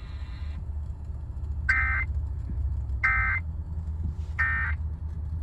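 Emergency Alert System end-of-message signal: three short, raspy digital data bursts about 1.4 s apart, marking the close of the EAS test message. A low steady hum runs underneath.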